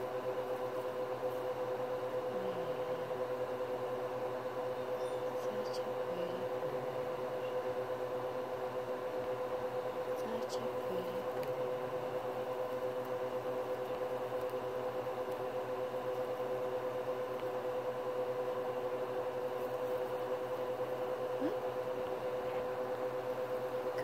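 A steady machine-like hum with a constant tone, unchanged throughout, and a few faint soft ticks here and there.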